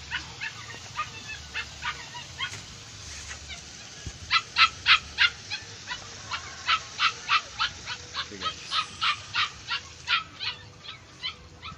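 An animal yapping in runs of short, sharp calls, about three a second, loudest around four to five seconds in and tailing off near the end.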